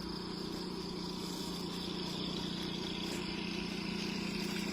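A small engine running steadily, its hum slowly getting louder, with insects chirring high above it.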